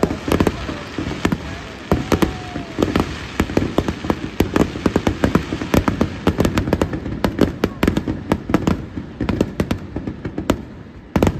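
Aerial fireworks bursting overhead in a rapid barrage, many sharp bangs in quick succession, briefly letting up shortly before the end and then starting again.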